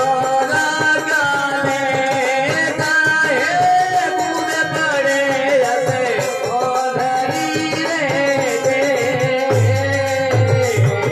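Rajasthani folk bhajan: a male voice sings a wavering melody over harmonium, with dholak drumming and the clatter of kartal wooden clappers. The low drum strokes come in heavier near the end.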